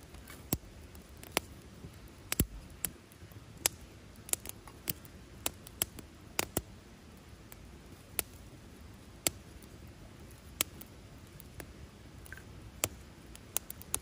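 Campfire of split kindling crackling, with sharp irregular pops, a little more than one a second.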